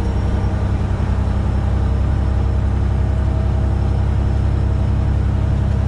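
Semi truck's diesel engine running steadily at highway speed, heard from inside the cab, with a constant low hum and tyre noise from the wet road.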